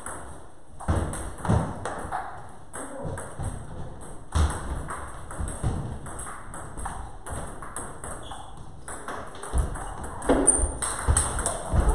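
Table tennis balls clicking off the tables and rubber-faced paddles during play: a string of short, sharp ticks, louder and more frequent near the end.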